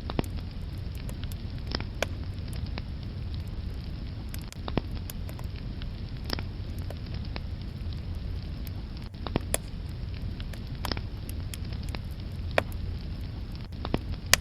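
Wood fire burning in a fireplace, crackling: sharp irregular pops and snaps, a few louder ones scattered throughout, over a low steady rumble of the flames.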